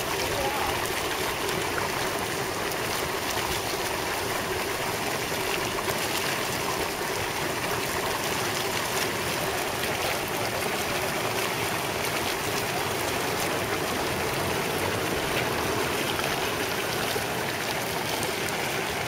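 Geothermal mudpot boiling steadily, a continuous churning of hot mud with many small bubbles popping.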